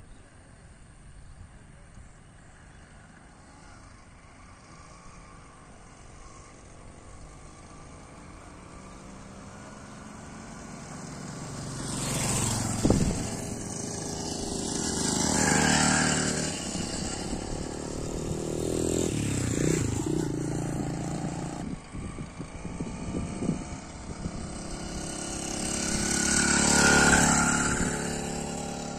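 BT80 80cc two-stroke bicycle engine on a motorized bicycle running as it is ridden. It is faint at first, grows louder as the bike comes near, and passes close about twice, its pitch rising and falling.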